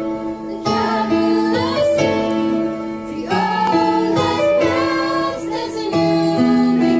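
A small group of singers, three women and a man, singing a Christmas song together through hand-held microphones, their voices holding long notes.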